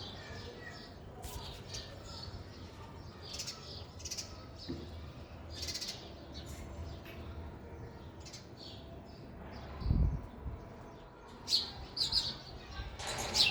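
House sparrows chirping, short separate chirps at irregular intervals that come thicker and louder near the end. A dull low thump about ten seconds in.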